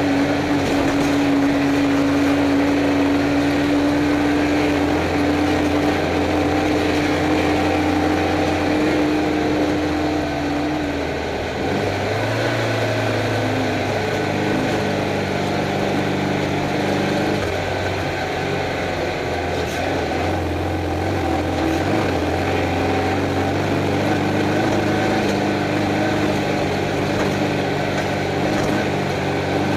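Air-cooled Volkswagen flat-four engine of a stock Beetle desert race car running hard, heard from inside the cabin. Its pitch steps down and back up a few times, over constant road noise.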